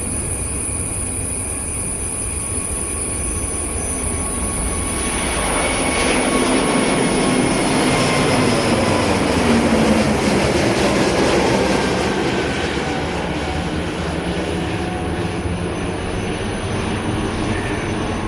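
Airliner passing by. Its engine noise swells about five seconds in, peaks with a falling pitch, then fades.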